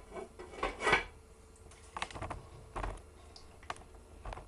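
Scattered light clicks and knocks of a plate being handled and set over a frying pan as a lid, with a faint steady hum underneath.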